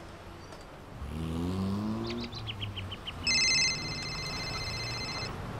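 Street sounds: a car engine speeds up about a second in, and a bird gives a quick run of falling chirps. Then a high electronic trilling ring, most likely a mobile phone's incoming-call tone, starts loud about three seconds in and holds for two seconds.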